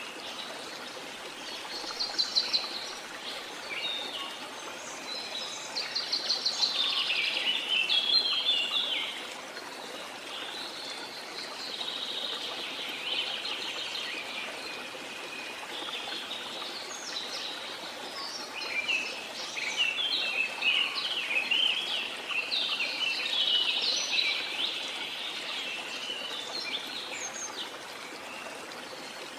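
Several birds chirping and calling in quick, repeated phrases over the steady rush of a waterfall. The bird calls come in busy spells and are the loudest sound, with the falling water as a constant hiss underneath.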